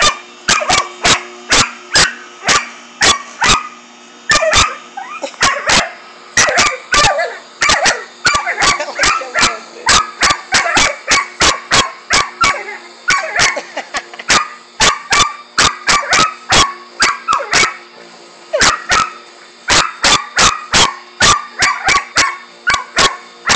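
A dog barking rapidly and without let-up, about two to three sharp barks a second, over a faint steady hum.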